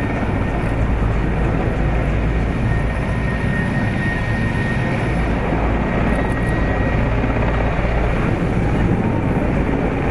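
Mi-8-type military helicopters taxiing with rotors and turbine engines running: a steady, loud rotor and engine noise with a heavy low rumble.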